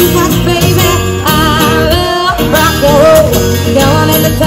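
Live singer performing a song to acoustic guitar accompaniment, the voice wavering over strummed chords.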